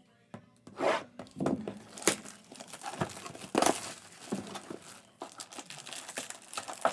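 Plastic wrap being torn and crinkled off a cardboard trading-card box, then the box opened and packs pulled out. It comes as irregular bursts of tearing and rustling, some louder than others.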